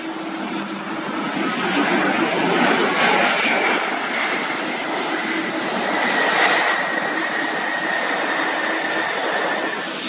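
Airliner passing close by: a dense engine rush that swells for a few seconds and eases off, with a faint high whine that falls slightly in pitch.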